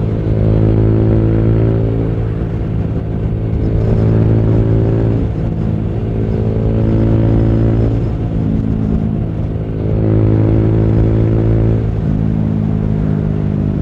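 Yamaha YBR 125G motorcycle's single-cylinder engine running at road speed through a newly fitted exhaust. Its pitch rises and falls several times as the throttle is opened and eased.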